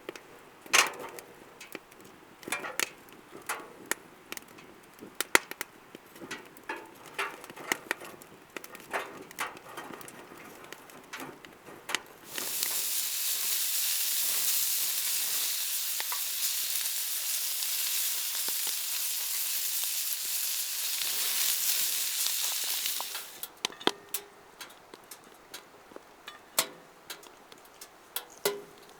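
Pork belly frying on a griddle over a wood fire: scattered pops and crackles, then about twelve seconds in a loud steady sizzle that lasts about ten seconds before dying back to pops.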